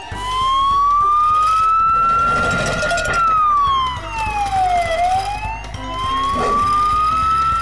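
Wailing siren sound effect, slowly rising and falling in pitch: up, down and up again, over a low steady rumble.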